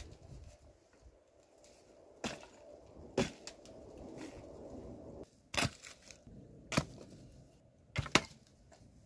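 Sharp cracks of wood, about six of them at uneven intervals, the last two coming close together near the end.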